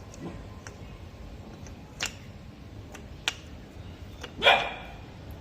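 Light metallic clicks and taps as a new clutch field coil is fitted onto a car's AC compressor, with one louder clank about four and a half seconds in.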